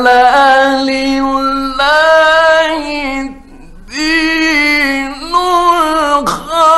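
A male Quran reciter in melodic mujawwad style, drawing out long, ornamented notes. There are two long phrases with a short breath between them, and a third phrase begins near the end. The recording comes from the 1950s.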